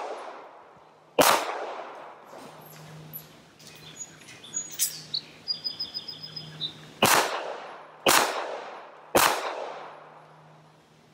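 Smith & Wesson M&P9 2.0 9mm pistol firing with an echoing report: one shot about a second in, then a few seconds of light clicks and knocks from the reload, then three shots about a second apart near the end.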